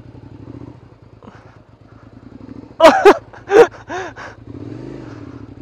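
Suzuki SV650S V-twin engine idling steadily. About three seconds in come a few short, loud cries that bend in pitch.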